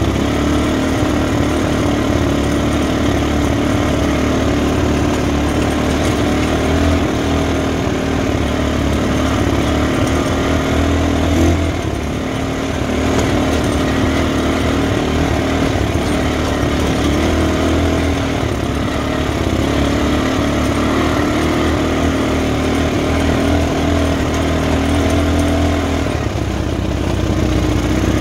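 Off-road buggy engine running steadily while driving on a dirt track, with road rumble. The level dips briefly about twelve seconds in.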